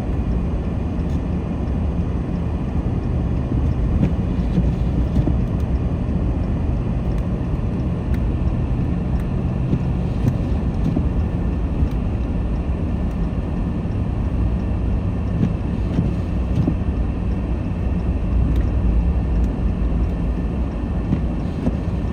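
Steady low road and engine rumble inside a car driving on snowy roads.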